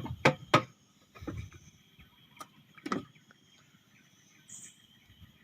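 A few sharp clicks and knocks, three in quick succession at the start and a few more scattered later, over a steady faint insect drone.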